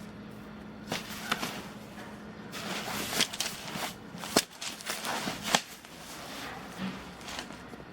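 Handling noise: rustling with several sharp clicks and knocks, busiest in the middle and settling down near the end.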